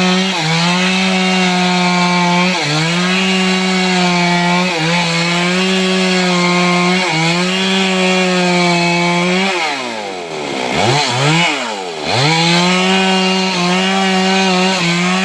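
Stihl two-stroke chainsaw running at high revs, its note dipping briefly about every two seconds. About ten seconds in, the revs fall away and climb back twice before it runs flat out again.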